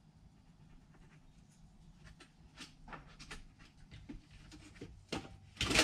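Light clicks and scrapes of a tape measure and pencil being handled on a wooden board, with a louder burst of noise near the end.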